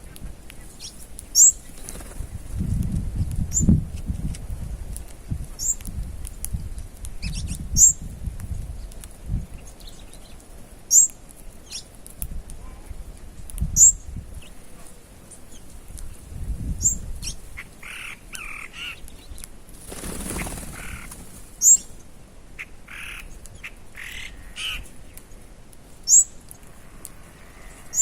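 Wild birds calling at a feeding spot: a short, high, downward-sliding chirp repeats every two to three seconds. Lower calls join in bursts in the second half, and a low rumble sits under the first third.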